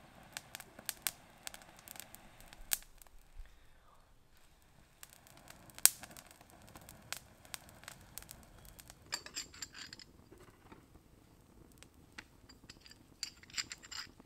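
A dry-grass tinder bundle, handled and blown on, crackles and rustles as it goes from smouldering ember to open flame. Two long, soft blows of breath are heard, one in the first few seconds and one more from about five to nine seconds, under sharp irregular crackles. Dense crackling of burning grass comes in a cluster about nine seconds in and again near the end.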